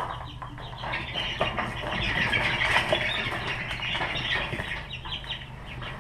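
Baby chicks peeping in a stock-tank brooder: a dense chorus of short high peeps that swells about two seconds in, over a low steady hum.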